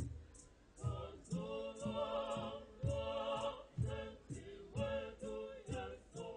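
A large mixed choir of men and women sings a Shona-language hymn in harmony, in short rhythmic phrases. A steady high ticking beat runs under the voices about two to three times a second.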